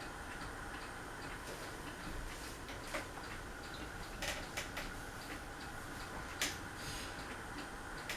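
Craftmade Phoenix ceiling fan running: a steady hum with light ticking about twice a second and a few sharper clicks in the middle.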